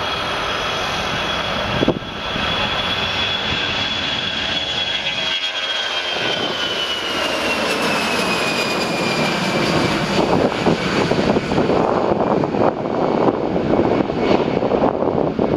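Delta Airbus A319-114's CFM56 jet engines at takeoff thrust as it climbs out past the camera. A high whine holds, then drops in pitch as the jet goes by, giving way to a louder, rougher rumble from behind it.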